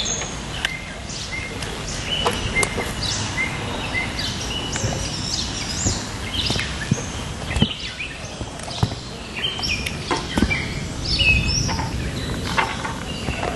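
Songbirds chirping, with many short rising and falling calls, over a steady low rumble and scattered clicks and knocks.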